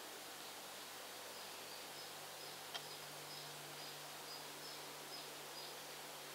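Faint outdoor ambience: a steady hiss with a low hum, a faint high chirp repeating about twice a second, and a single sharp click near the middle.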